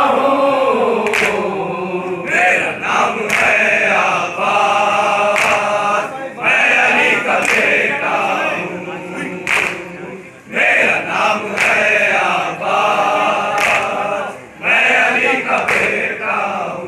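Group of men singing a Muharram noha in unison, a loud chorus of lament. Sharp slaps about once a second keep time: the rhythm of matam, the chest-beating that goes with noha.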